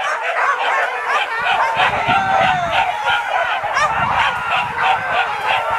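A pack of hunting dogs yelping and baying together, many high calls overlapping.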